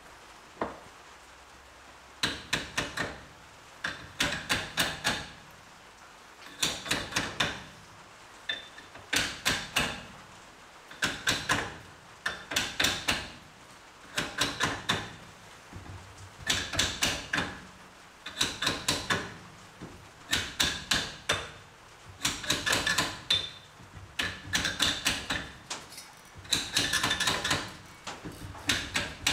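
A hand tool working at the lead-coated rim of an old beer pump's metal cylinder. It goes in short bursts of quick, sharp strokes, a burst every two seconds or so.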